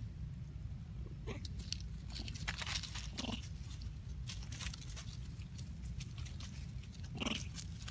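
Long-tailed macaques making a few short calls, about a second in, near the middle and near the end. Scattered crackles come from them moving through the leaf litter, over a steady low rumble.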